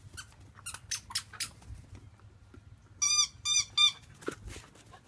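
A dog's squeaky toy squeaking three times in quick succession, short and high-pitched, about three seconds in, as a black puppy chews it. A few faint clicks come before.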